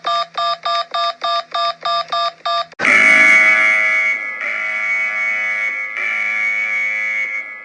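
Emergency alert alarm: a rapid beeping made of several tones at once, about four beeps a second. About three seconds in it changes to a loud, steady alert tone of several held tones.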